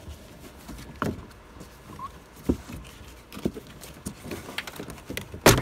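Plastic interior trim on a 2016–2017 Honda Civic's rear pillar being pulled loose by hand. Its retaining clips give scattered small clicks and creaks, then a louder snap near the end.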